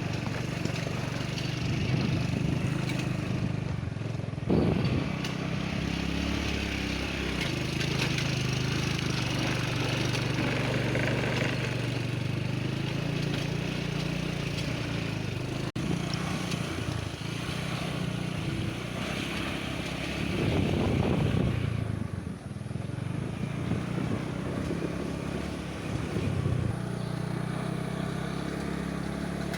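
Small motorcycle engine running steadily while being ridden, getting louder for a couple of seconds about two-thirds of the way through.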